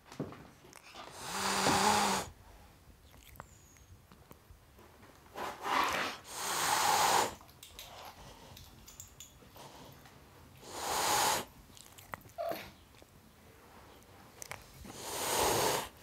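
Tom cat hissing, five hisses of about a second each, spaced a few seconds apart, two of them close together near the middle.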